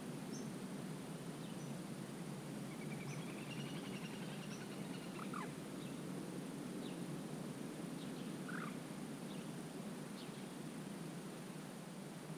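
Wetland ambience: a steady low background rush with scattered faint bird calls, a quick trill of repeated notes about three seconds in and two short, sharper calls around five and eight and a half seconds in.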